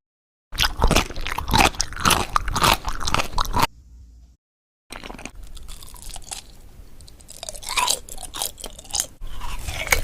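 Close-miked crunchy chewing and biting of food, in two stretches cut apart by short gaps of dead silence.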